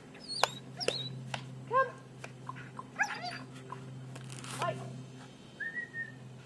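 Dog whining and yelping in a series of short, high-pitched calls that rise and fall, with a few sharp clicks in the first second and a half. A steady low hum runs underneath.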